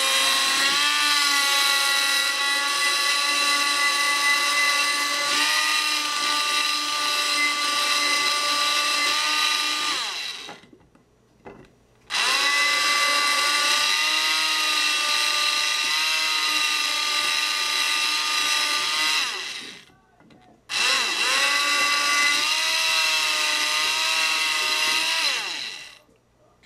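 Stick blender running in a glass jar of melted oils, beeswax and zinc oxide, a steady high motor whine that rises in pitch as it spins up. It runs in three long stretches, switched off briefly about ten and twenty seconds in, and stops near the end.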